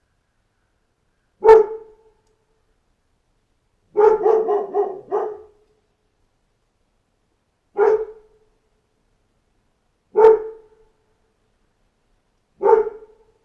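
A dog barking: one bark, then a quick run of about five barks, then three more single barks a few seconds apart.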